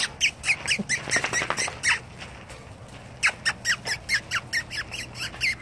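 Rapid kissing sounds made with the lips to call puppies: short, high squeaks, each dropping in pitch, about three or four a second. They come in two runs with a pause of about a second, roughly two seconds in.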